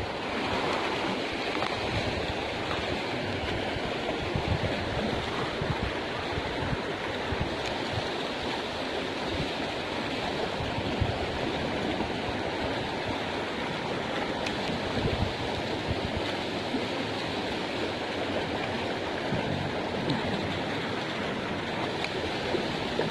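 Fast-flowing river water rushing steadily, a swollen current after recent flooding, with scattered low thumps.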